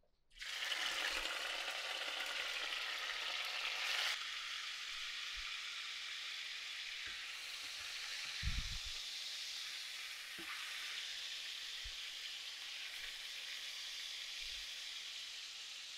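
Cod fillets sizzling in hot olive oil in a stainless steel frying pan, the steady hiss starting suddenly as the fish goes in and a little louder for the first four seconds. A low thump about eight and a half seconds in.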